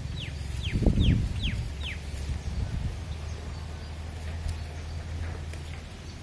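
A bird calling a quick run of five falling whistled notes in the first two seconds, with a low thump about a second in over a steady low hum.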